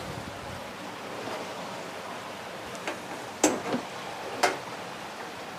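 Water bubbling and churning steadily in an aerated koi tub, with two short sharp sounds about a second apart near the middle.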